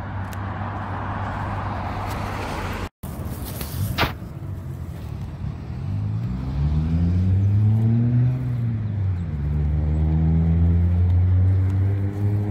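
Road traffic on a busy multi-lane road: a steady hiss of passing cars, broken by a brief dropout and a single knock. From about six seconds in, a nearby vehicle's engine rises in pitch, drops, then holds a steady note as the loudest sound.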